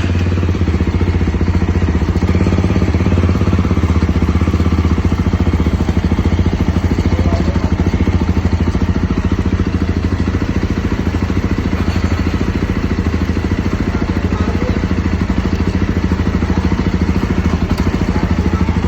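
Jawa Bobber motorcycle's single-cylinder engine running steadily at an even speed.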